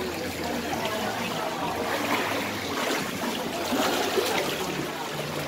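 Lazy river water trickling and splashing.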